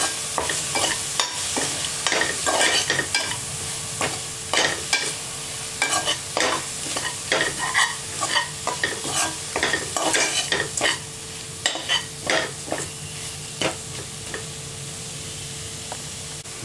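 Onion, tomato and masala mixture sizzling in a steel pot while a spatula stirs it, scraping and knocking irregularly against the pot, the strokes thinning out near the end.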